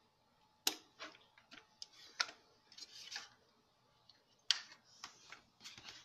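Irregular light clicks and knocks as an Eiki film projector is handled by hand, over a faint steady hum. The loudest clicks come near the start, about two seconds in and about four and a half seconds in.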